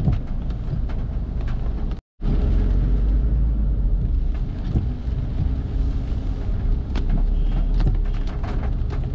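Car cabin driving sound in slow traffic: a steady low engine and road rumble with scattered light ticks. It cuts out completely for a moment about two seconds in.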